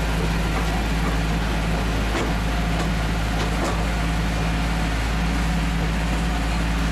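Steady low drone of a running motor vehicle, an even hum with no change in pitch.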